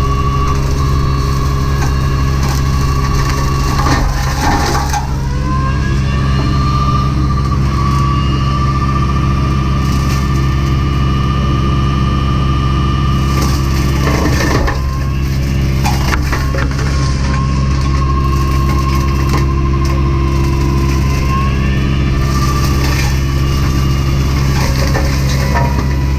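Hydraulic brush-mulching head on a Takeuchi TB240 mini excavator, a RUT Mfg 42-inch Brush Eliminator, spinning with a steady high whine over the machine's engine and chewing through brush and wood with crackling and splintering. The whine sags twice, about four and fifteen seconds in, as the rotor takes the load of the cut.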